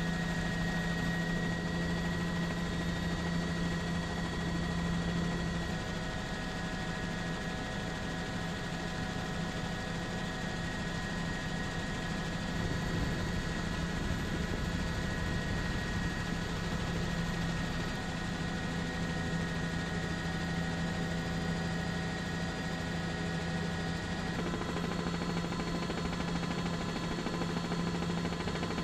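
Helicopter engine and rotor noise heard from on board, a steady hum with a few fixed tones that shifts slightly in pitch a few times.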